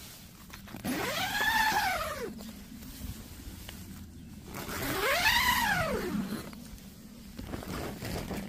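Zipper on a plastic tunnel greenhouse's door cover being pulled, twice. Each pull lasts about a second and a half and gives a whine that rises and then falls in pitch with the speed of the pull.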